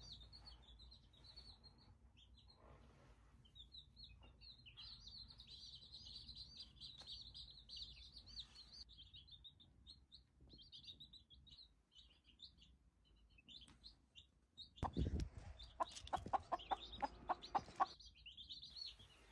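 Baby chicks peeping steadily in rapid high cheeps. About fifteen seconds in, a low thump and then an adult chicken clucking in a quick run, about four clucks a second for some two seconds.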